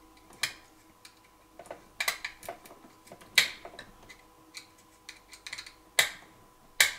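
Handling noise from a plastic Wi-Fi wall switch and its wiring being fitted at a wall box: a few scattered sharp clicks and taps, the loudest about three and a half, six and almost seven seconds in.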